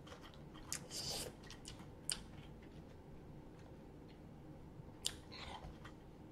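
Faint eating sounds: crispy fried chicken and french fries picked apart by hand and chewed, with a few sharp crackles and clicks.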